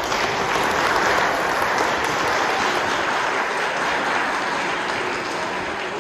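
Audience applauding: steady clapping that starts at once and eases slightly toward the end.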